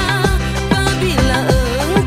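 Woman singing a slow Malay pop melody with wavering vibrato over a backing track with a steady beat.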